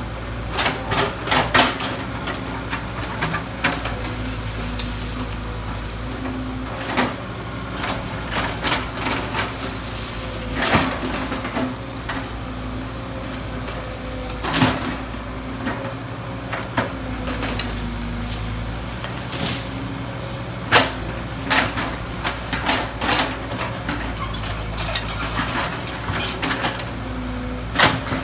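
Kobelco excavator's diesel engine running steadily, with frequent sharp clanks and knocks over the drone.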